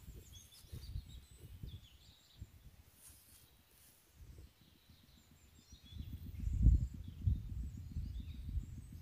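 Outdoor rural ambience by a river: irregular low rumbling that grows louder about two-thirds of the way through, with faint bird chirps.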